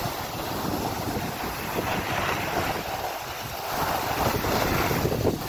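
Skis hissing and scraping over packed snow while skiing downhill, with wind rumbling on the microphone. The scraping grows louder in the second half.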